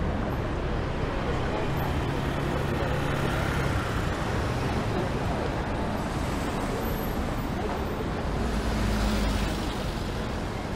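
Steady urban background noise, like traffic heard in the distance, with a low rumble that swells briefly about nine seconds in.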